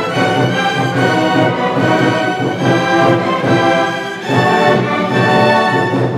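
Student orchestra of brass, clarinets, flutes and violins playing held chords together, with a brief dip and a change to a new chord about four seconds in.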